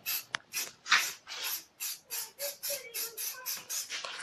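Aerosol spray-paint can being sprayed onto a bicycle in quick short hissing bursts, about three or four a second.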